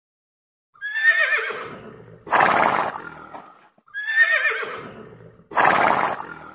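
Horse whinnying twice, each call starting high and wavering, then falling away into a breathier, rougher tail. The two calls are nearly identical.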